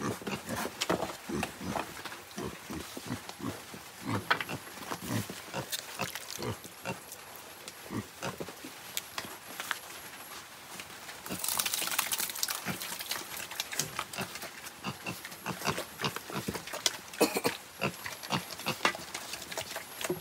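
Several black piglets grunting in many short, separate sounds. A brief rushing noise comes about halfway through.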